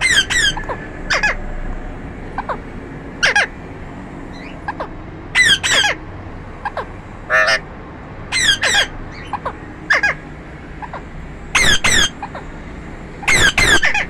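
Parakeets squawking: loud, harsh calls repeated every second or two, several of them in quick doubled pairs.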